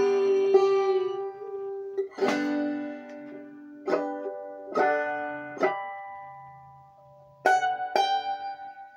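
Five-string banjo played clawhammer style, closing out a song: a ringing chord fades, then single strummed chords come about a second apart, each left to ring out, and two quick strums near the end.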